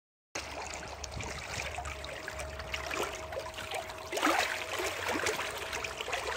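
Watersnake T18S electric trolling motor running in a tub of water, its propeller churning and splashing the water over a steady motor hum. The sound cuts in suddenly just after the start.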